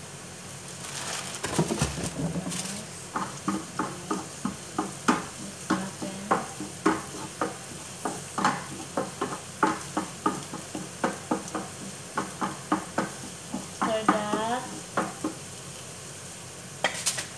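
Wooden spatula stirring and knocking in a frying pan of onions sizzling in oil, about two strokes a second. Near the start, sliced fresh coriander is tipped into the hot pan with a brief swell of sizzling.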